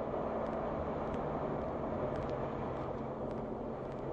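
Steady road noise of a car driving on a slushy, snow-covered highway: tyres running through slush under a low, even engine hum, with faint light ticks now and then.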